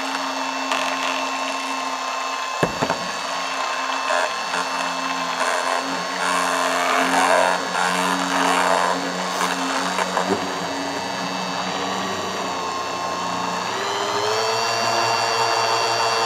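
Handheld stick blender running in a beaker of thickening hyaluronic acid gel, a steady motor whine with churning from the mix. About fourteen seconds in, the whine rises in pitch as the mixer speed is increased now that the gel has thickened.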